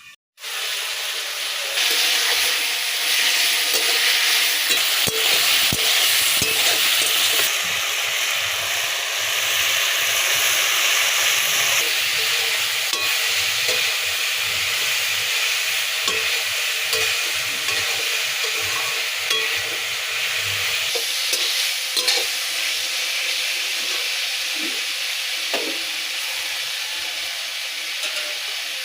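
Food frying and sizzling in oil in a cooking pot, with a steady hiss and occasional small clicks of stirring against the pan.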